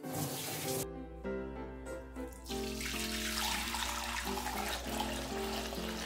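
Liquid running steadily, starting about two and a half seconds in, over background music.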